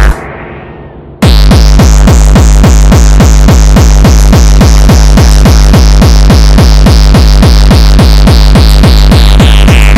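Dutch hardcore gabber track: a fast, heavy kick-drum beat drops out for about the first second, leaving a fading tone, then slams back in at full level. Over the returning beat a high synth line holds and slides down near the end.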